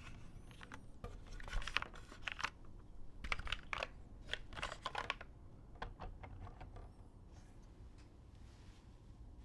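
Mechanical keyboard with lubed vintage Cherry MX Black linear switches in an aluminium top-mount plate, with G81-3100 keycaps, being typed on in irregular bursts of keystrokes. The typing thins out and stops about seven seconds in.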